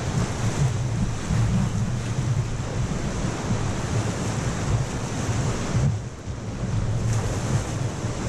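Whitewater rushing around a rowed raft running a rapid, a steady loud roar of water with wind buffeting the microphone. The noise dips briefly about six seconds in.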